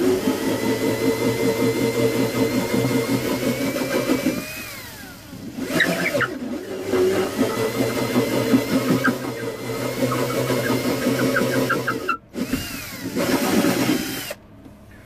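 Cordless drill boring into the wooden side of an oud body, its motor whining in runs that pause briefly about four and a half seconds in and again near twelve seconds, then stopping near the end.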